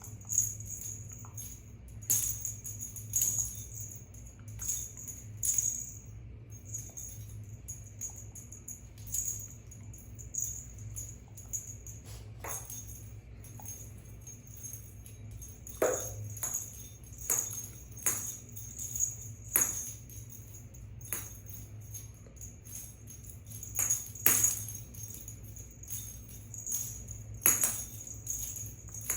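Small bell jingling in short, irregular shakes over a low steady hum.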